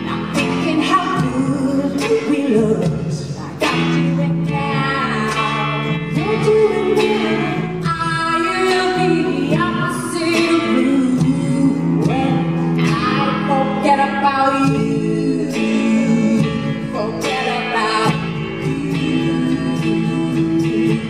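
Live song performance: a woman singing lead into a microphone over electric guitar.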